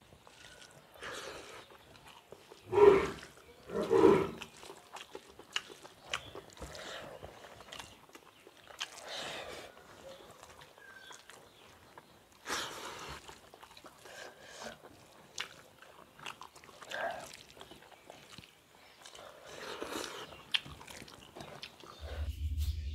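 Close-miked eating sounds from people eating rice and fish curry with their hands: chewing and mouth noises mixed with fingers working the rice on steel plates, in irregular bursts. The loudest two come about three and four seconds in.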